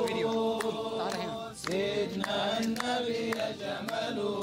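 Men's voices chanting together in long held, drawn-out notes, with a short break partway through, kept in time by steady handclaps.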